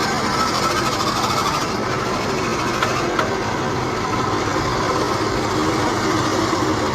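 Steady engine and traffic noise from vehicles and machinery on a busy road under construction, with two short knocks about three seconds in.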